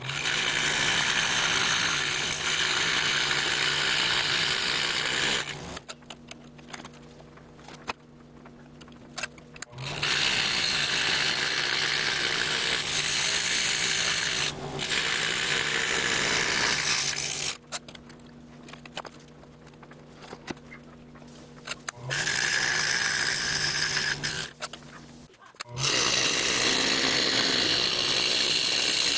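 Scroll saw with a Pegas #4 spiral blade cutting baltic birch plywood, a steady rasping buzz as the work is fed along the pattern lines. Twice for a few seconds, and once briefly near the end, the cutting noise drops away to a low steady hum.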